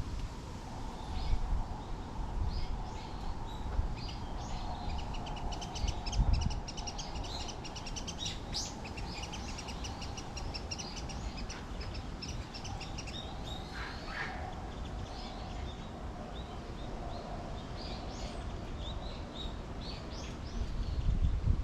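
Wild birds chirping and calling, with short high chirps throughout and a fast run of repeated notes around the middle, over a low rumble and a few dull thumps.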